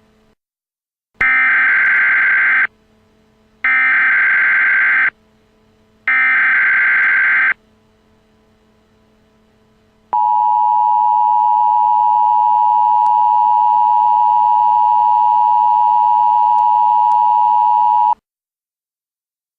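Emergency Alert System signal: three data bursts of the SAME header, each about a second and a half long, then the two-tone EAS attention signal (853 and 960 Hz sounding together) held steady for about eight seconds before cutting off suddenly.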